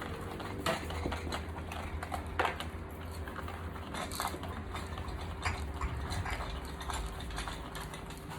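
Scattered light clicks and clatters of small hard plastic toy pieces being handled, over a steady low hum.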